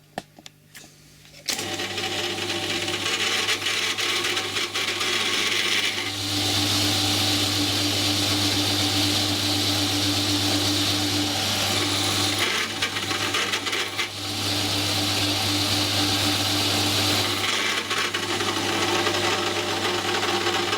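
Electric drill running an M8 counterbore cutter into metal: the motor starts about a second and a half in and hums steadily, and in two long spells the cutter bites, adding a loud hissing, grinding cutting noise over the hum.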